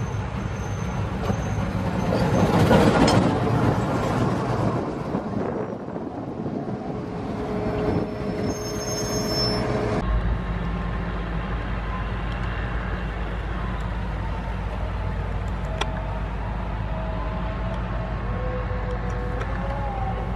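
Diesel locomotive passing close by, loudest about three seconds in, then fading. About ten seconds in the sound changes abruptly to the steady low drone of a diesel locomotive's engine.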